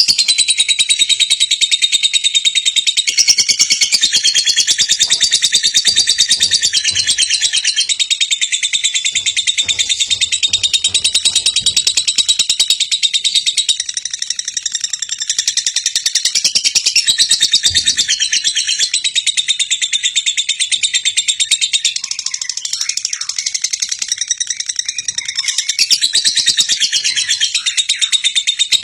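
A lovebird singing a continuous, very rapid high-pitched trilling chatter with no breaks.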